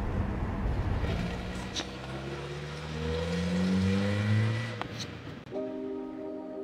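A small hatchback car's engine accelerating away, its pitch rising steadily for about three seconds before it cuts off. Soft ambient music with steady held tones comes in near the end.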